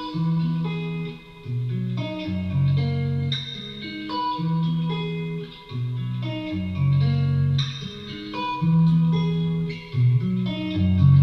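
Instrumental music with guitar over a bass line, a run of held melody notes over changing bass notes.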